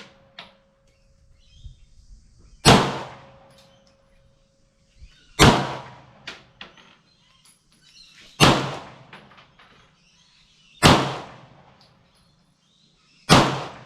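CZ TS2 Tactical Sport pistol fired five times at a steady pace, a shot every two and a half to three seconds, each a sharp crack with a short fading echo.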